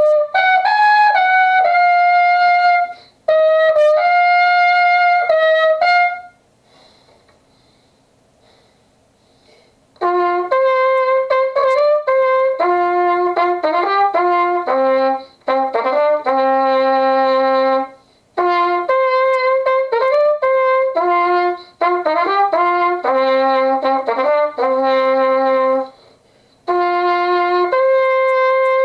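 Solo unaccompanied trumpet playing phrases of held notes and quick runs, with short breaks for breath and a pause of about four seconds some six seconds in.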